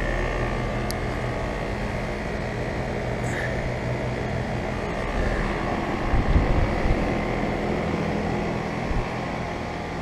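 Carrier Comfort Series heat pump outdoor units running in heat mode with their coils frosted over: a steady scroll-compressor hum under the whoosh of the condenser fans. A few low thuds about six seconds in.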